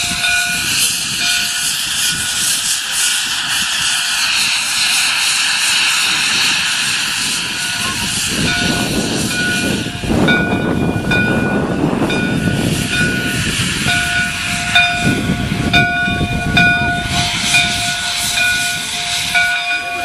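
Steam train under way: the running noise of the Prairie Dog Central's 4-4-0 steam locomotive No. 3 and its coaches. A steady hiss is broken by short, repeated high-pitched tones that come and go.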